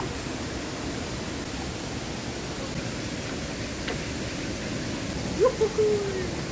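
Steady rush of flowing river water. About five and a half seconds in comes a brief call, falling in pitch.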